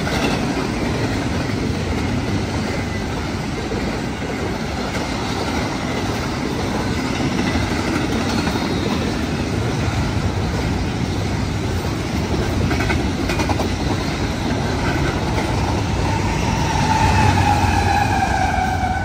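Double-stack intermodal freight train rolling past: a steady rumble and clatter of steel wheels on rail under the container cars. Near the end, Union Pacific diesel locomotives come by, the sound gets louder and a whine falls in pitch as they pass.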